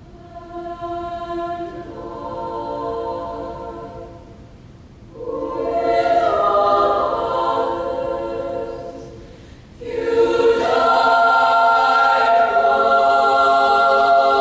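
Girls' choir singing sustained chords in three phrases, each entering more strongly than the last; the loudest phrase begins about ten seconds in and is held.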